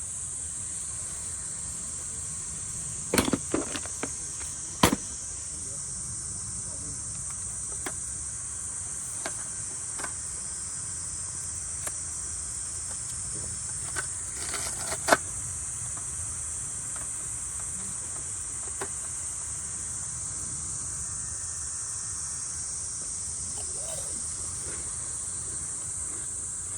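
Steady, high-pitched chorus of insects, with a few sharp knocks and clatters about three to five seconds in and again around fifteen seconds in.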